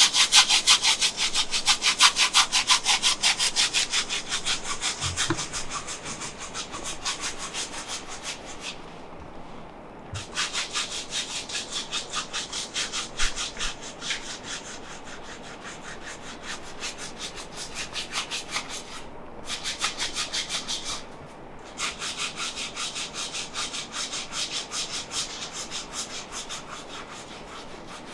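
A masseur's hands rubbing briskly over the body in a fast, even rhythm of about five strokes a second. The strokes are loudest in the first few seconds and stop briefly a few times.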